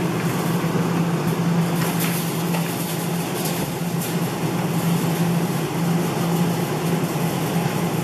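Steady mechanical hum and whir of a claw machine being played, with a constant low drone and a few faint clicks.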